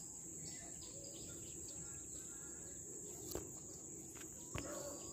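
Steady high-pitched insect drone over faint outdoor background noise, with two brief clicks in the second half.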